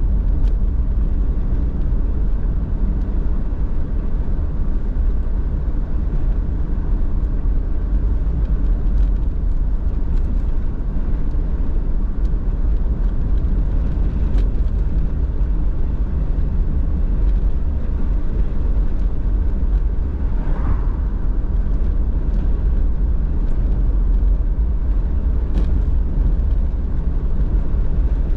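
Steady low rumble of a car being driven: engine and tyre-on-road noise.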